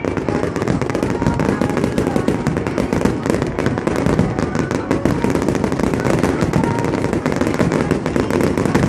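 Fireworks display: many aerial shells bursting at once in a rapid, near-continuous string of bangs and crackles.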